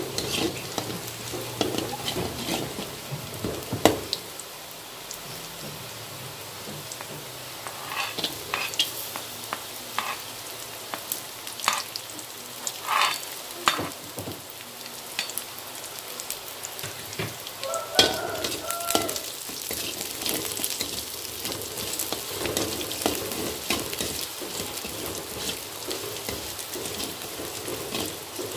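Sliced shallots sizzling in a little oil in a metal wok, with a metal spatula scraping and clicking against the pan as they are stirred; sliced garlic goes in about halfway through and keeps frying with them.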